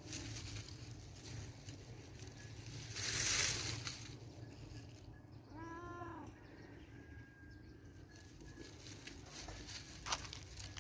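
A long-haired white cat gives one short meow about halfway through, its pitch rising and then falling, while its fur is being combed. Before it there is a brief loud rush of noise, and near the end a single sharp click.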